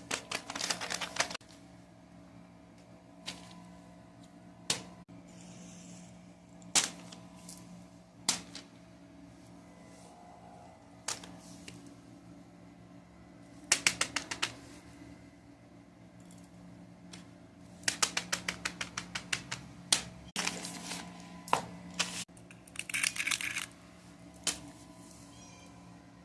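Bursts of rapid plastic clicking, with single clicks in between, from fidget toys being handled, over a steady low hum.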